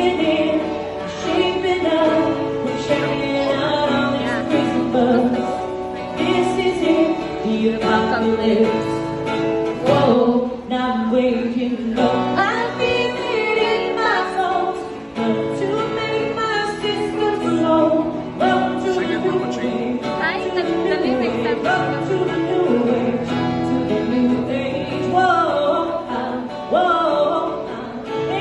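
A woman singing a slow song to her own acoustic guitar accompaniment, amplified through a small PA speaker.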